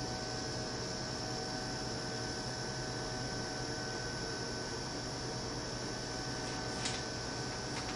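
Steady electrical hum and hiss from an automatic emulsion coating machine as its coating trough carriage travels down the screen frame. A single sharp click comes about seven seconds in.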